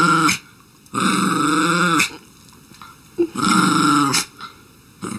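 Small shaggy dog growling in drawn-out growls about a second long, each rising and falling in pitch, with short pauses between: one ends just after the start, two more follow, and another begins at the very end.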